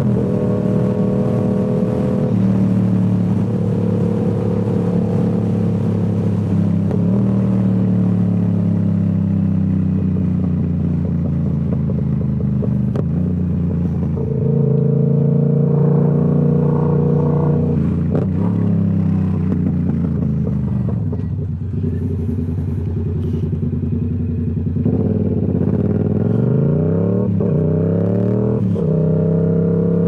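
Yamaha R7's parallel-twin engine running through a Toce full-system exhaust while being ridden, its note rising and falling with the throttle. In the second half the pitch drops and climbs again in several quick sweeps.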